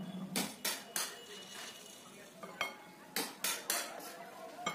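Metal palette knife clinking and scraping against the cake turntable and its tools: about seven short, sharp strokes, a cluster near the start and another past the middle.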